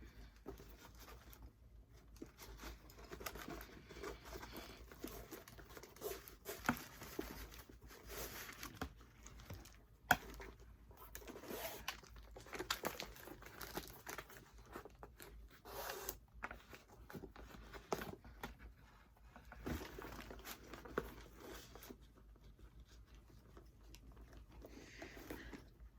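Shoelaces being pulled and threaded through the eyelets of a leather Air Jordan 1 sneaker, with irregular rustling and crinkling as the shoe is handled and a few sharp clicks along the way.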